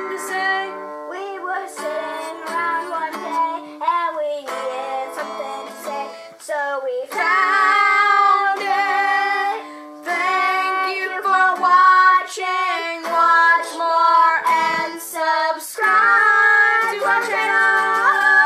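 A song: a high voice singing over plucked guitar.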